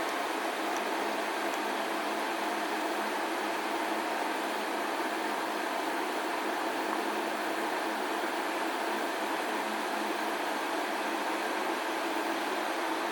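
Refrigerated display case running: a steady hum of its cooling unit over an even hiss, unchanging throughout.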